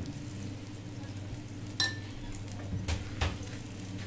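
Ghee sizzling as it is spooned onto a hot tawa around a frying paratha. A metal spoon clinks once with a short ring about two seconds in, followed by two duller knocks about a second later.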